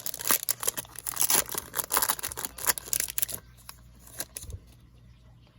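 Foil trading-card pack wrapper being torn open and crinkled, a dense, rapid crackling for about three and a half seconds that then drops away to a few faint clicks.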